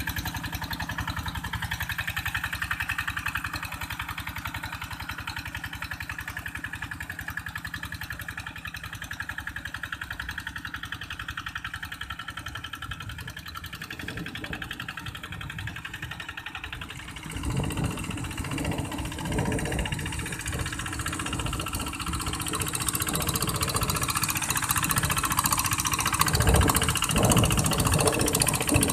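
Two-wheel hand tractor's single-cylinder diesel engine running steadily with a fast regular chug as it ploughs wet paddy mud; it grows louder and rougher about two thirds of the way in.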